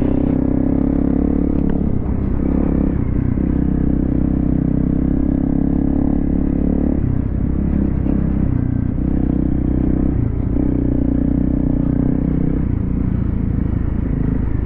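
A 250cc single-cylinder dual-sport dirt bike engine running steadily under way on a trail. The throttle eases off briefly about halfway through and again near the end.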